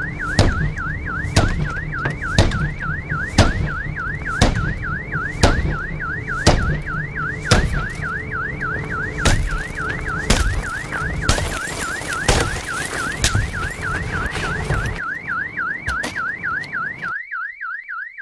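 Car alarm warbling, a tone sweeping up and down about three times a second, while a motorcycle helmet strikes a car window coated with LLumar security film about once a second. The film holds the glass and the helmet bounces off without shattering it. The blows stop about fifteen seconds in and the alarm runs on.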